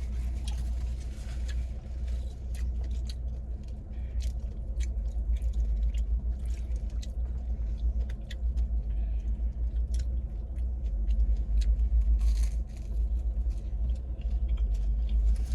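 Chewing and small sharp clicks of someone eating, over the steady low rumble of a car's running engine heard from inside the cabin.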